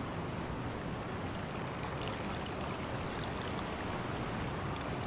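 Steady, even rushing noise of the surf at the shore, with no distinct events standing out.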